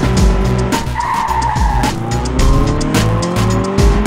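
Dubbed race-car sound effects over background music with a steady beat: a tyre screech about a second in, lasting about a second, followed by an engine revving up in pitch.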